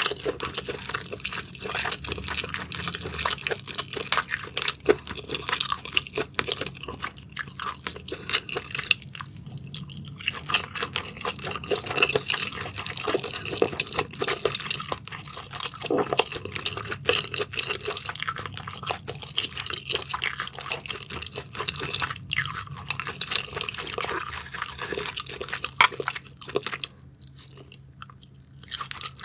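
Close-miked chewing of spicy sauced scallops: a dense, irregular run of sticky mouth clicks and smacks, going briefly quieter near the end before another bite.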